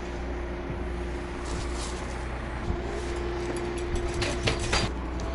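Truck-mounted crane's engine running steadily, a low drone with a held higher hum over it. A few light clicks and taps come in about two seconds in and again near the end.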